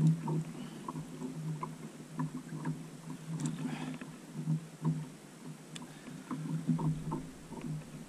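Water sloshing against a plastic kayak hull while the boat rocks, with a steady low hum and scattered small clicks and knocks of gear handling. A short rustle comes about three and a half seconds in.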